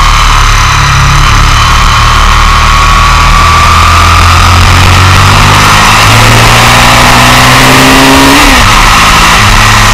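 Sport motorcycle at track speed, heard from a camera mounted low on the bike: engine note under heavy wind rush. The revs climb and then drop sharply near the end.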